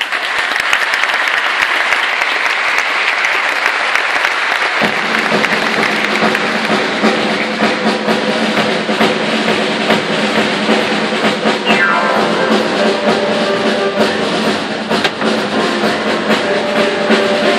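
Audience applauding; about five seconds in the orchestra starts playing, with drums, while the clapping carries on underneath.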